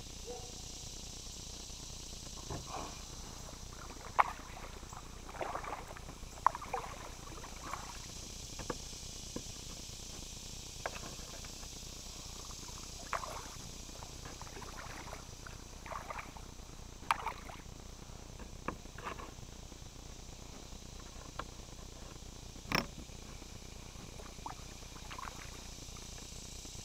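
Kayak paddle strokes through calm water: irregular small splashes and drips, with one sharp click or knock near the end, over a steady high hiss.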